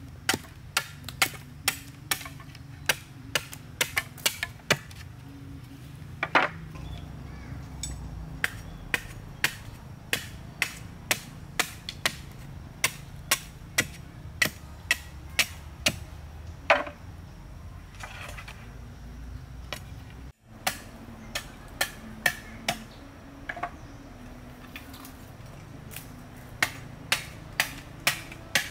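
Machete blade striking a green bamboo pole in quick, regular strokes, about two a second, splitting the bamboo into slats. The strokes pause for several seconds past the middle and start again near the end.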